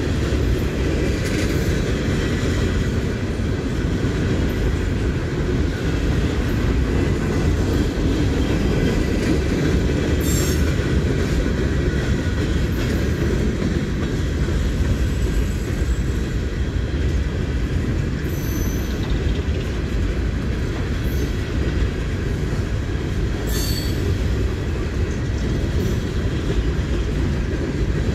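Hopper cars of a long freight train rolling past: a steady rumble of steel wheels on rail, with a few brief high squeaks of wheel squeal, about a third of the way in, two-thirds in and near the end.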